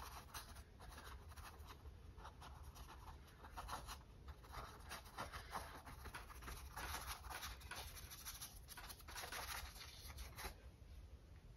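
Paintbrush bristles brushing over a stretched acrylic canvas in soft, irregular strokes as the paint is softened and blended. Faint, and stopping shortly before the end.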